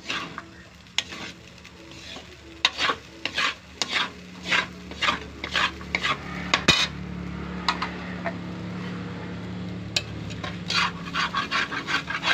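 Spatula scraping and turning fried rice in a large metal wok, a run of strokes about two a second, then a faster run near the end, over a light sizzle of frying.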